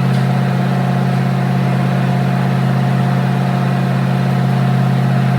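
Engine idling steadily: an even low hum with a faint steady whine above it.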